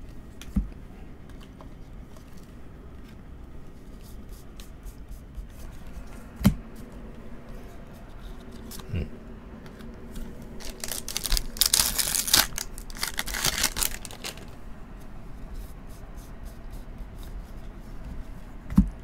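The foil wrapper of a 2024 Bowman baseball-card jumbo pack being opened, about four seconds of dense rustling and ripping midway through. Before and after it come a few short knocks and quiet handling of cards.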